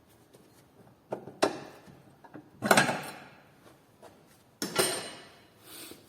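Metal tools knocking and clanking against a car's front suspension parts while the control arm is worked loose. Four sharp metallic hits with a short ring, the loudest and longest one about two and a half seconds in.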